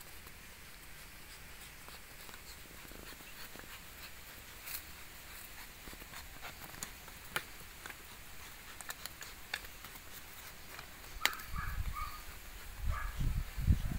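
Belgian Malinois puppies playing on bare dirt: scattered light scuffs and clicks. Near the end there are low thumps and a few short high-pitched notes.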